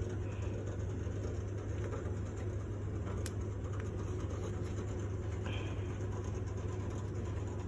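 Steady low hum from the Sematic elevator door drive during its self-learning (learn-travel) run, with a single faint click about three seconds in.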